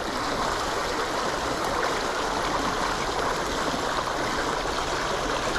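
Steady rush of water flowing through a small channel, an even, unbroken splashing.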